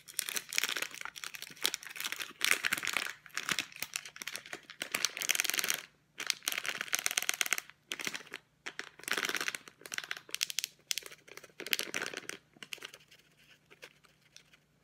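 Plastic bag of coconut flour crinkling as it is handled, squeezed and tipped to pour, in repeated bursts that die down near the end.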